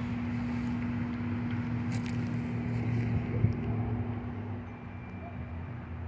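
Microwave oven running: a steady low electrical hum.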